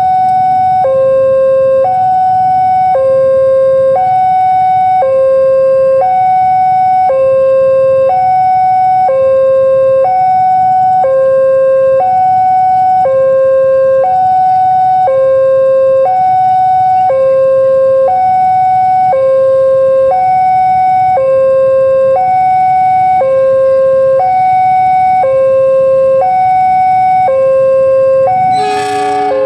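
Railway level-crossing warning alarm sounding as a train approaches: an electronic two-tone signal alternating high and low, each tone about a second long, over a low rumble. A brief, loud horn blast cuts in near the end.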